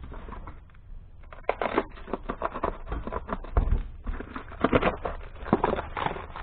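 Parcel packaging rustling and crinkling as it is torn open by hand, in quick irregular crackles that grow busier after the first second or so.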